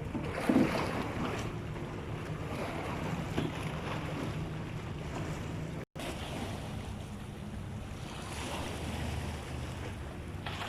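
Wind buffeting the microphone over the wash of sea water, with a faint low steady hum underneath. There is a knock about half a second in, and the sound drops out for an instant about six seconds in.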